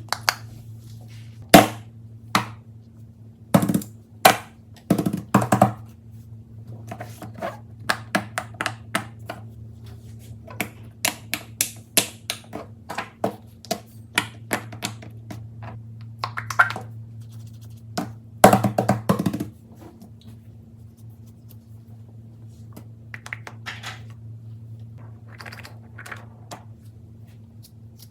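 Fidget toys being handled: an irregular string of sharp clicks, taps and thunks, in a few denser clusters, with a quieter stretch in the second half. A steady low hum runs underneath.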